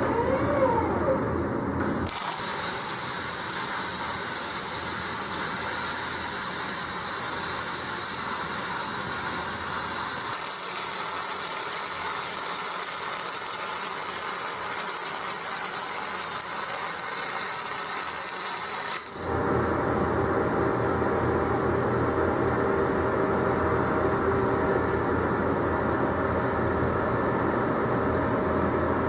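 A robotic welding arc hissing steadily, starting abruptly about two seconds in and cutting off suddenly after about seventeen seconds. Before it, faint gliding whines; after it, a lower steady hum.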